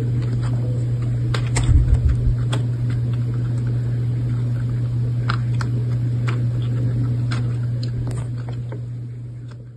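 A steady low hum with scattered sharp paper clicks as a paper dragon puppet's jaws snap shut; the sound fades out near the end.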